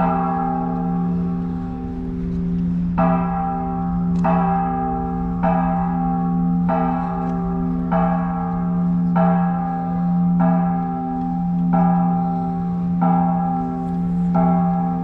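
Church bell tolling, struck at a steady pace of about one stroke every second and a quarter. Each stroke rings on into the next over a constant low hum.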